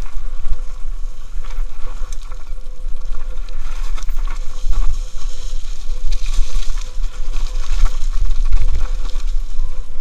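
Mountain bike descending a rough dirt and rock trail at speed: tyres running over loose dirt and stones, with frequent knocks and rattles from the bike over bumps, and heavy wind rumble on a helmet camera's microphone.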